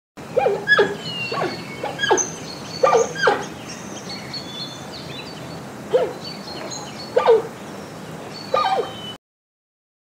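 Giant panda calling: about nine short, high bleating calls in a loose series over a steady background hiss. The sound cuts off suddenly near the end.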